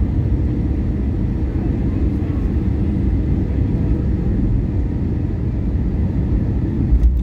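Cabin noise of an Airbus A320-233 landing, heard over the wing: a steady low rumble of its IAE V2500 engines and airflow, with a deeper rumble swelling near the end.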